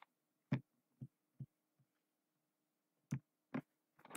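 Faint, scattered clicks of a computer mouse and keyboard, about six spread apart, then a quick run of taps at the very end, over a low steady hum.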